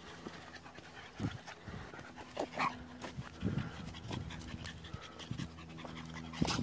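A dog panting in short, irregular bursts.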